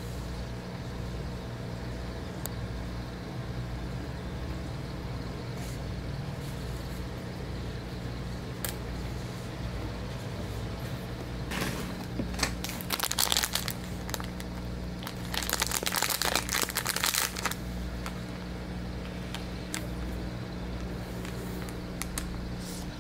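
Clear plastic bag crinkling as it is handled, in two bursts of a few seconds each about halfway through, over a steady low hum.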